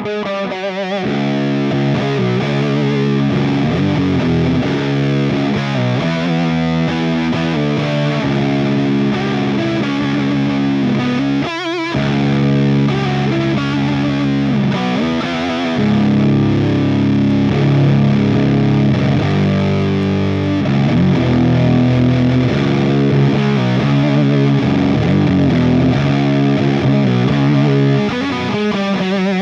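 Electric guitar tuned down to C# played through an EarthQuaker Devices Hizumitas fuzz pedal, heavily distorted chords and notes ringing out with long sustain. A brief break comes about twelve seconds in, and the playing is slightly louder from about halfway through.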